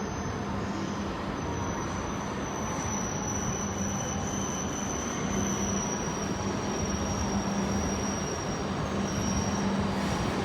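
Shinkansen bullet train moving along the station platform: a steady rush with a thin high whine that slowly drops a little in pitch, growing slightly louder near the end.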